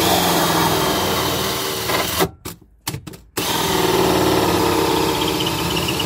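Power drill running a 57 mm hole-saw cutter up through the motorhome's floor from underneath. It cuts steadily, stops about two seconds in for a few short trigger blips, then cuts again.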